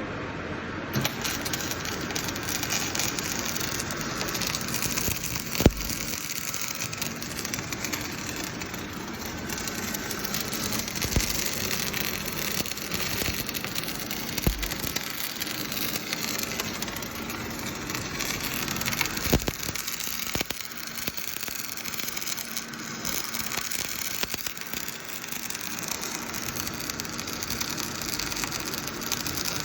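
Semi-automatic welding arc crackling and sizzling steadily, starting about a second in, with a couple of sharp clicks along the way.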